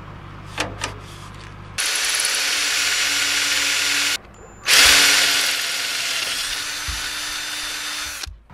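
Ryobi cordless drill boring a hole through a steel mounting bracket, run in two bursts: about two seconds in for a couple of seconds, then after a short pause again for about three and a half seconds, loudest as the second burst starts and easing off after that. A couple of small clicks come just before the first burst.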